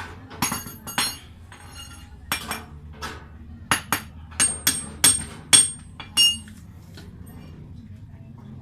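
Metal hand tools striking and clinking on metal, about a dozen sharp ringing hits in irregular groups, stopping about six seconds in, as the wheel of a Bajaj RE auto-rickshaw is being removed.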